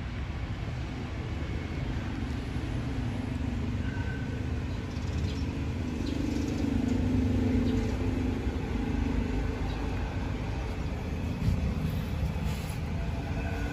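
Road traffic: a steady low rumble, with a vehicle's engine hum swelling about six seconds in and fading a few seconds later.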